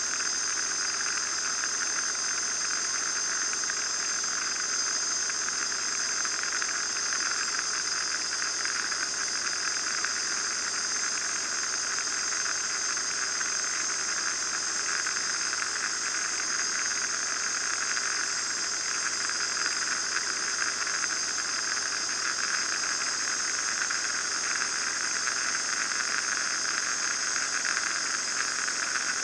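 Steady cruise noise heard inside the cabin of a Van's RV-9A single-engine light aircraft: engine and propeller running at constant power with airflow hiss over the canopy, and a steady high-pitched whine on top.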